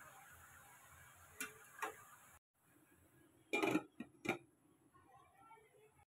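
Steel lid set down on a steel kadhai: a metal clatter and then a second sharp clink, after two light clicks.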